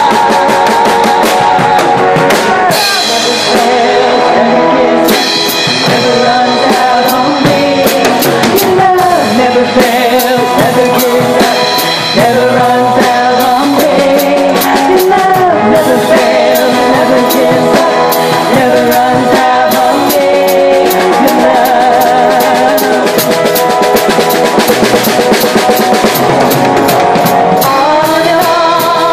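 A live worship band plays rock-style music: a drum kit struck with sticks right beside the microphone, with guitar and singing.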